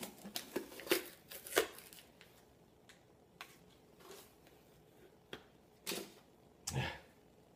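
A plastic tub of whey protein powder being opened and handled: scattered clicks, rustles and scrapes, many in the first two seconds, then a few spaced ones.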